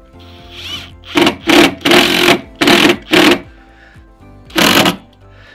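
Cordless impact driver driving stainless steel screws through a solar panel mounting bracket into the camper roof, in six short bursts over about four seconds. Background music plays throughout.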